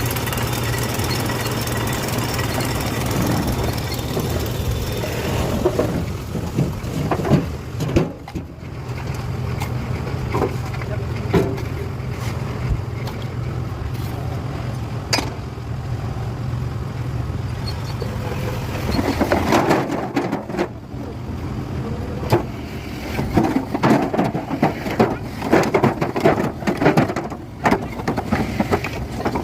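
An engine running with a steady low hum, with scattered knocks. About two-thirds of the way through, a busy run of knocks and clatter takes over.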